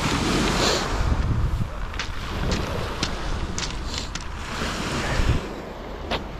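Wind buffeting the microphone, with a low rumble that swells about five seconds in, over the wash of small waves on a pebble beach. A few sharp clicks come through in the middle.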